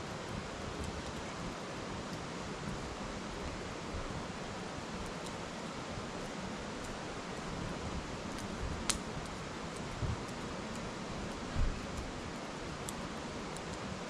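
Wood fire crackling, with scattered small pops and one sharp pop about two-thirds of the way through, over the steady rush of a river. Two low thumps come near the end.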